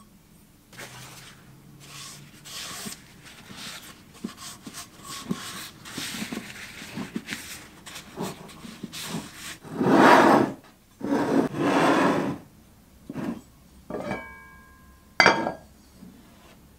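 Paper towel rubbing over a wooden knob and a cast iron lid in repeated wiping strokes, loudest around the middle. Near the end the cast iron lid is set onto the pan in two clanks, the first with a short metallic ring.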